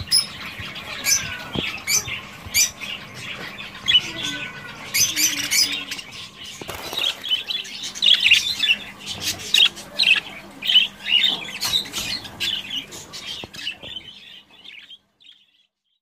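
Budgerigars chattering with rapid, continuous chirps and squawks and scattered clicks, fading out near the end.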